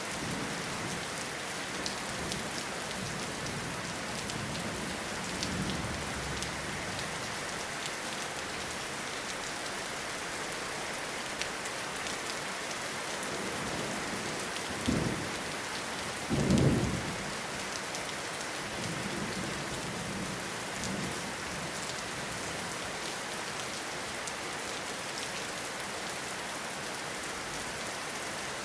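Steady rain falling, with low rolls of thunder. Two louder, short thunder rumbles come about halfway through.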